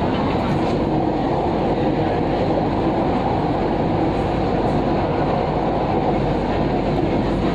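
Kochi Metro train running at speed, heard from inside the car: a steady, even rumble of wheels and running gear.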